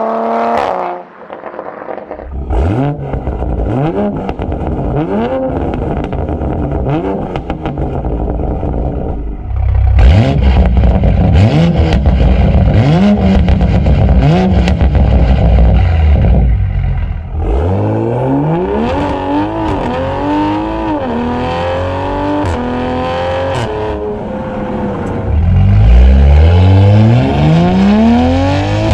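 Tuned A90 Toyota Supra's turbocharged straight-six (B58), running through a catless downpipe and aftermarket cat-back exhaust, revved over and over, its pitch climbing and dropping with each rev, with sharp crackles mixed in. The revs are loudest about ten seconds in and again near the end.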